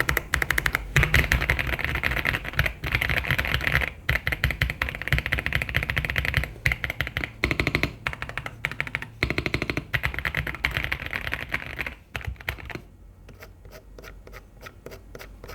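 Typing on a KZZI K98 mechanical keyboard: a fast, dense run of key clacks. About three-quarters of the way through the typing becomes sparser and quieter.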